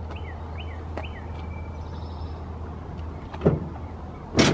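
Lift-up side compartment lid on a Ford F-250 utility bed being pulled down and shut, with two sharp thumps about a second apart near the end as it closes.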